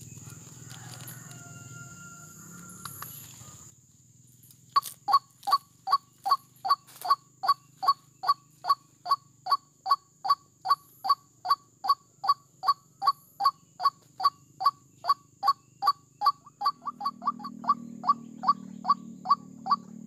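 White-breasted waterhen (ruak-ruak) calling: a long run of short, identical hoarse notes at a little over two a second, starting about five seconds in and quickening for a moment near the end. A thin, steady high whine sounds behind it.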